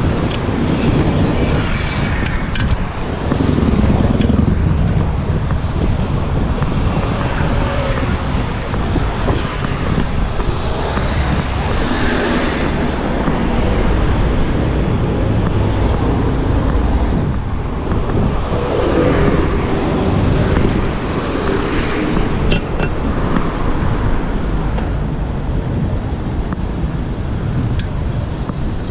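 Steady wind rumble on the microphone of a moving bicycle, with city road traffic passing. A few vehicle engines rise and fall in pitch as they go by, and there are a few sharp clicks.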